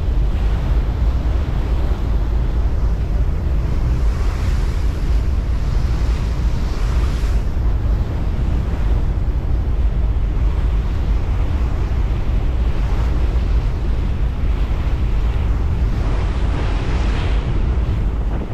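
Steady wind buffeting the microphone, with a heavy low rumble and a rush of water, as heard aboard a moving ferry.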